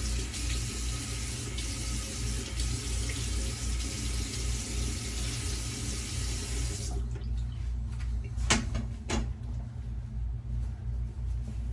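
Sink tap running while a face is rinsed with cold water; the water is shut off about seven seconds in. Two sharp knocks follow over a low steady hum.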